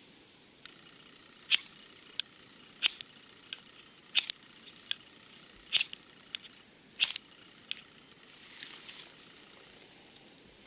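Knife spine scraped hard down a flint (ferro) rod: about a dozen short, sharp rasps at irregular intervals that stop after about eight seconds. The strikes throw sparks onto charcloth in a tinder bundle to start a fire.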